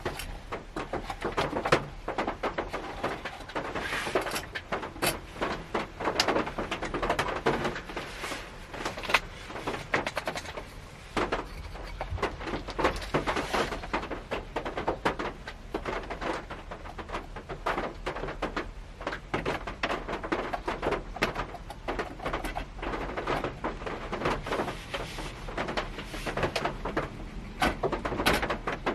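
Raindrops pattering irregularly on the roof of a Honda Step Wagon, heard from inside the closed cabin as a dense run of small taps and thuds.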